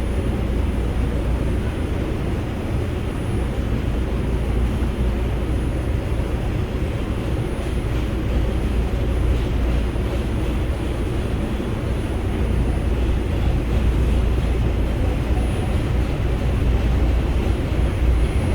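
R142 subway car running at speed, heard from inside the car: a steady rumble of wheels, track and traction motors, growing slightly louder near the end.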